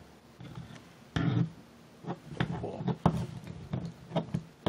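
A plastic action figure handled and stood on a tabletop by hand: a handful of light clicks and knocks, spread through the few seconds, with a short rustle about a second in.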